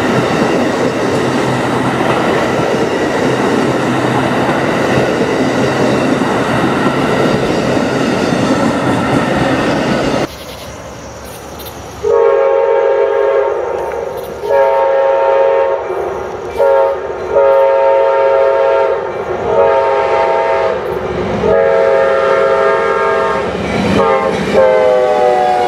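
Amtrak Superliner bilevel passenger cars rolling past with a steady rumble of wheels on rail. After a short quiet gap, an Amtrak locomotive's multi-tone air horn sounds a series of blasts for a grade crossing, in the order long, long, short, long, then further blasts. Its pitch falls as the locomotive passes near the end.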